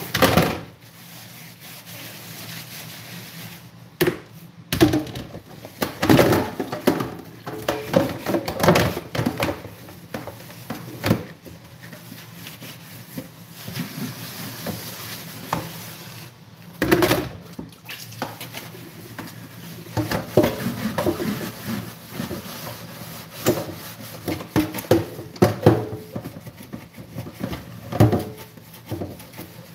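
Plastic bowls and colanders being handled, knocked together and scrubbed with a sponge in a stainless steel sink: irregular knocks, clatter and rubbing, with sharper knocks near the start and again in the middle.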